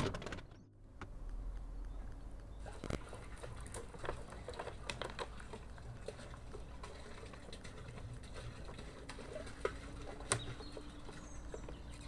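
Water poured from a plastic jug into the top of a blue plastic drum, topping up its water: a steady splashing with a few light clicks.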